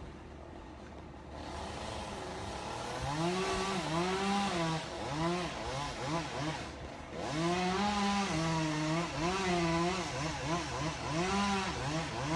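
Chainsaw engine being revved again and again, its pitch rising and falling with each squeeze of the throttle, starting about three seconds in.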